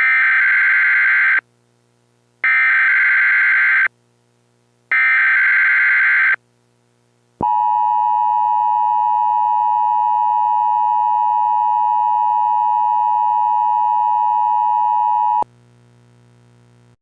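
Emergency Alert System SAME header: three bursts of buzzing digital data tones, each about a second and a half long. These are followed by the EAS two-tone attention signal, held steady for about eight seconds and cut off abruptly.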